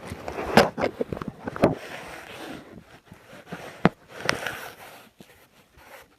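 Metal multi-tool handled as its pliers are worked out of the handles: a run of clicks, knocks and scraping, with one sharp click about four seconds in.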